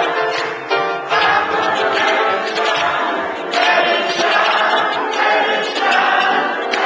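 Live gospel-style church music: piano and a small band accompanying singing, with the congregation singing along and clapping in time.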